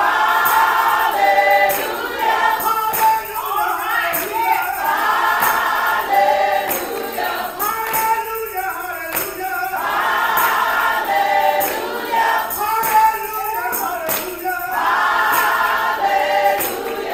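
Gospel group of women singing together, one voice on a microphone, over a steady percussive beat.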